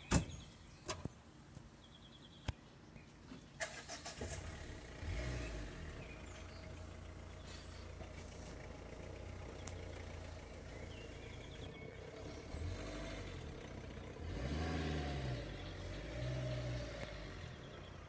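A car engine starts about four seconds in and idles. It revs briefly twice near the end.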